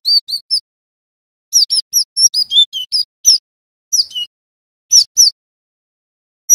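Cinereous tit (gelatik batu) singing in quick bursts of short, high, down-slurred chirping notes, with brief pauses between the bursts.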